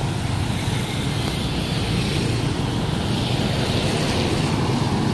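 Roadside traffic noise from cars, a jeepney and motorcycles on the highway: a steady engine-and-tyre rumble that swells in the second half as vehicles pass close.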